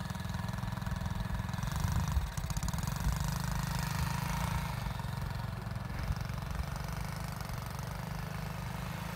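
Small 110cc single-cylinder four-stroke engine of a 2020 DF AVA Chinese youth ATV running steadily.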